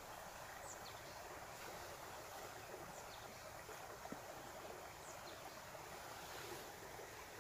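Faint, steady outdoor ambient hiss, with a few faint, short, high chirps about every two seconds.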